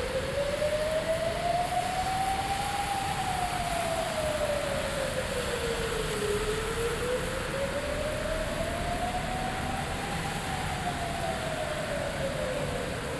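A siren wailing, its pitch rising and falling slowly: two full sweeps, each about seven seconds up and down, over a steady hiss.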